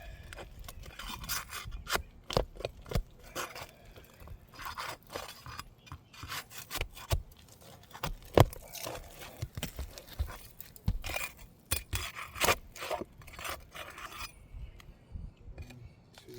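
Asphalt shingles being pried and worked loose with a hand tool: scraping and rubbing against the shingle surface, broken by many sharp knocks and clicks.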